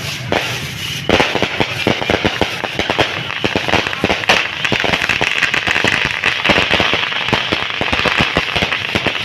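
Fireworks going off in a dense, rapid string of sharp cracks and pops, like a long string of firecrackers, starting about a second in and keeping on without a break.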